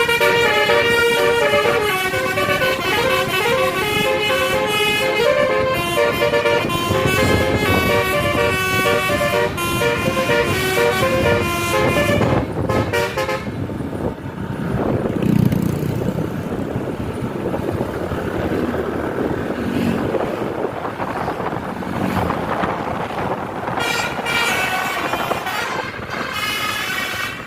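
Bus telolet horn, a multi-tone musical horn, playing a fast melody of changing notes for about the first half, then engine and traffic noise, and the horn melody starts again near the end.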